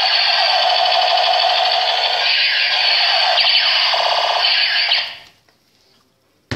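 Electronic sound effect from a battery-powered toy gun: a loud, buzzy alarm-like tone with sweeping pitch glides, cutting off about five seconds in.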